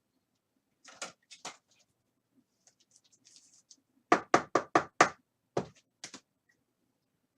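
A few faint clicks, then a quick run of about six sharp knocks on a hard surface about four seconds in, followed by two more.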